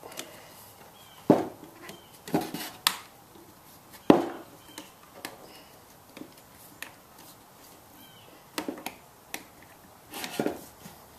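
Urethane bandsaw tire being stretched by hand over the rim of the bandsaw wheel, making a string of irregular sharp knocks and slaps as the tire snaps against the wheel and the wheel shifts in its clamps. The loudest knocks come in the first half.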